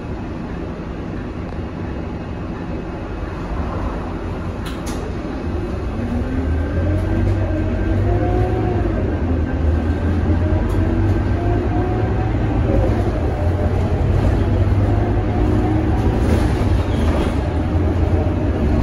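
Scania K230UB single-deck bus's diesel engine heard from inside the cabin as the bus pulls away and accelerates. The engine gets louder, and its note rises, drops back and rises again as the automatic gearbox shifts up.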